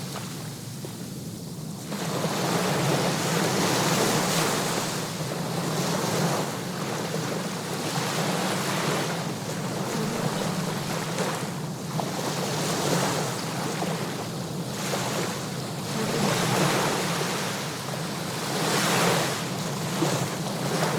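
Sea waves washing onto a shore. The surf rises and falls in repeated swells a few seconds apart.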